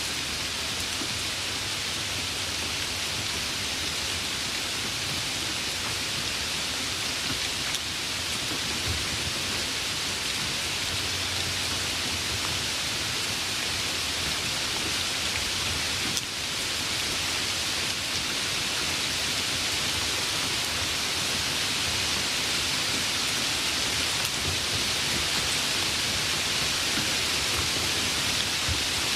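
Steady heavy rain, an even hiss without let-up, with faint low rumbles now and then.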